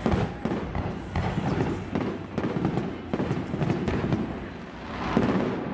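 Fireworks going off in quick succession: a rapid string of sharp bangs and crackles from bursting aerial shells, with a longer, louder rushing swell about five seconds in.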